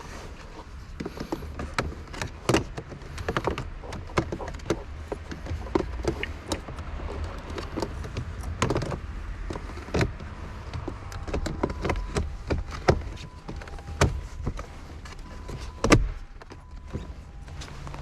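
Irregular clicks, taps and knocks, several a second, over a low steady rumble. Faint steady tones sound in the second half.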